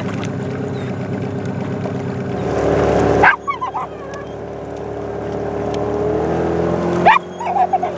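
A boat's motor running steadily, its pitch creeping up slightly near the end, cut off abruptly twice. Each cut is followed by brief whining calls.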